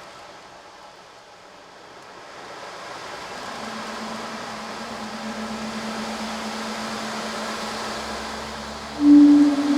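Sea surf ambience, a steady wash of noise that swells gradually. A steady low tone comes in about three and a half seconds in, and a louder, slightly higher tone joins near the end.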